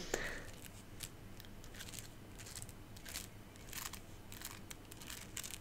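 Soft, irregular taps and scratches on a beaded decorative letter ornament, handled close to the microphone, about two a second.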